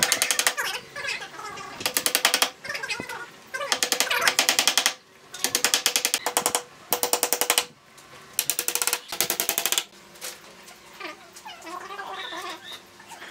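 Hammer driving small nails through bamboo slats into a wooden frame, in quick runs of light taps with short pauses between. Near the end a wavering pitched sound comes in.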